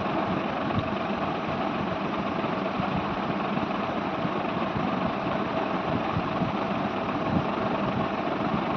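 Steady, unbroken mechanical hum of a running motor, with a faint steady tone in it.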